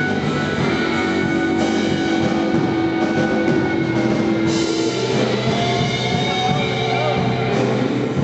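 Rock music with a drum kit, played without a break, with long held notes over the beat.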